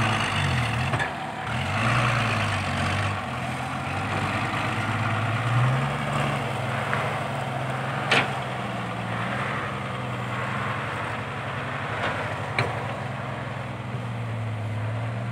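Diesel engines of an excavator and a loaded light dump truck running, revving up and down in the first few seconds and then settling into a steadier run. Two short, sharp clicks come at about eight and twelve and a half seconds.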